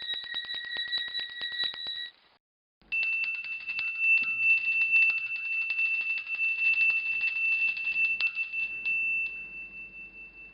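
Two bells rung in quick succession, each struck rapidly many times a second. The first, higher and two-toned, stops about two seconds in. After a short pause a second, single-toned bell trills until near the end, then is left ringing and fades away.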